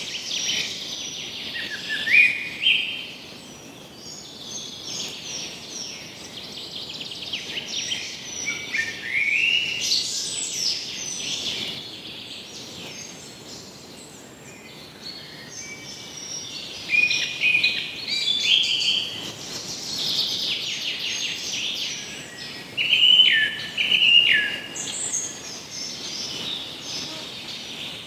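Several songbirds singing, a busy run of quick chirps and short trills with some notes stepping down in pitch, over a faint steady outdoor hiss.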